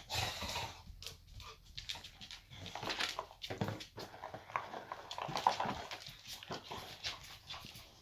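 Boxer dog making short, whiny 'talking' vocal sounds, mixed with scuffs and knocks from paws and a rubber toy on a laminate floor.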